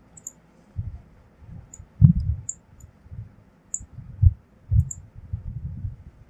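Computer mouse clicking and scrolling: a few small sharp ticks spaced irregularly, with soft low thumps in between, the loudest about two seconds in.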